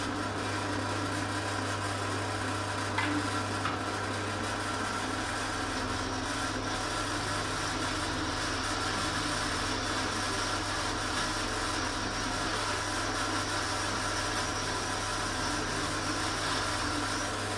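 Benchtop drill press running steadily as its bit drills a marked hole in a metal workpiece clamped in a drill-press vise. There is a single light click about three seconds in.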